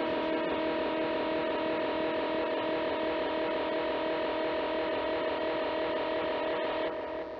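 Ambient music: a distorted, effects-laden guitar drone holding one steady chord over a noisy wash, dropping away sharply near the end.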